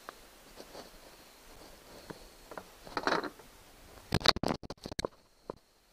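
Handling noise from working on a plastic kayak deck and rudder control parts: a few light clicks and a brief rustle, then a quick run of sharp clicks and knocks about four seconds in.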